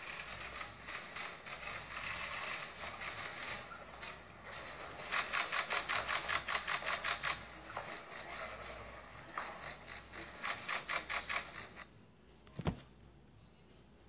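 Still-camera shutters clicking in rapid bursts of about six frames a second, the sound of press photographers shooting a handshake. A single short knock near the end.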